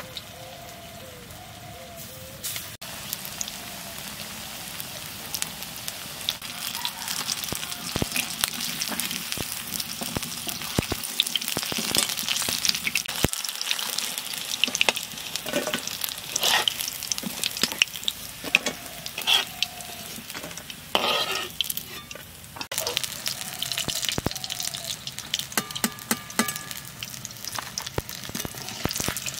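Batter-coated chicken pakoda pieces deep-frying in hot oil in a metal wok, a steady sizzle, with a metal slotted spatula scraping and clinking against the pan as the pieces are stirred. The sizzle grows louder a few seconds in, and the stirring strokes are busiest in the middle.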